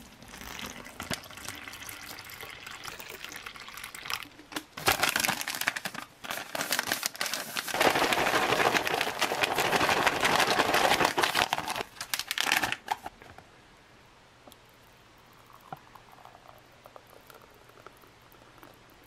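Water poured from a plastic bottle into a foil-lined drink pouch, then the pouch shaken and kneaded hard for about five seconds, its foil crinkling loudly as the protein powder and water slosh inside. Near the end the mixed drink is poured quietly into a glass.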